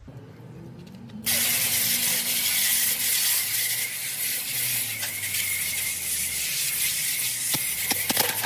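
A jet of rinse water switched on about a second in, hissing steadily as it sprays onto the finned coils and compressor inside an AC condensing unit.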